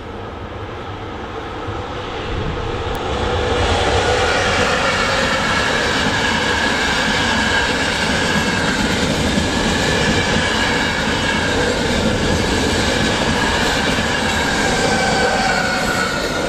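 Passenger train passing close by on its track: the rumble of wheels on rails builds over the first three or four seconds, then runs steadily and loud, with a thin high whine from the wheels over it.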